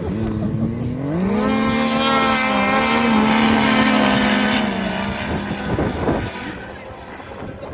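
A racing engine revs up about a second in, holds a steady high note for a few seconds, then eases off.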